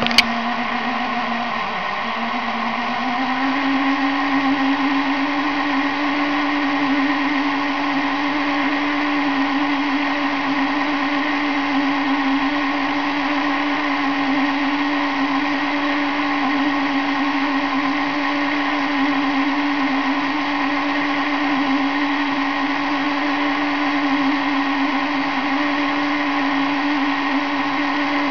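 Small electric drive motor and gearing of a model fairground Twister ride whirring steadily. Its hum dips about two seconds in, then climbs to a slightly higher steady pitch as the ride picks up speed.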